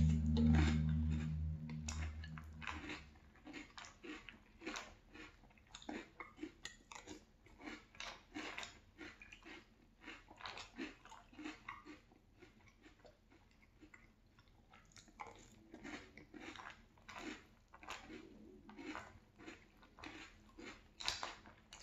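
Close-up chewing of crunchy French Toast Crunch cereal in milk: irregular crisp crunches, a few a second, with a low hum over the first couple of seconds.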